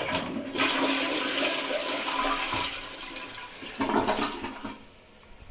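Sterling Windham toilet flushing: water rushes in suddenly and swirls down the bowl, with a second surge about four seconds in before it fades.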